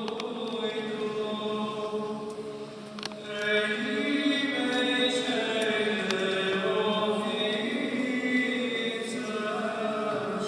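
Voices singing Orthodox liturgical chant in long held notes, growing louder about three seconds in.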